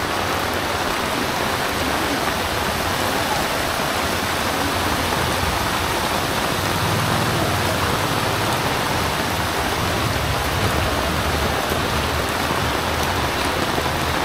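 Heavy rain pouring steadily onto a flooded street: an even, unbroken hiss.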